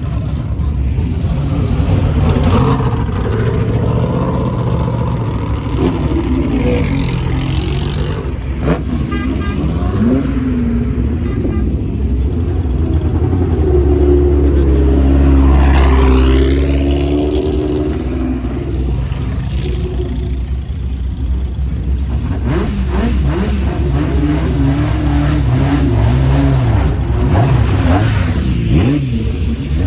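Several classic racing sports cars and GT cars pass slowly with their engines running, the revs rising and falling as throttles are blipped. One car passes louder about halfway through, its engine note sweeping up and then down.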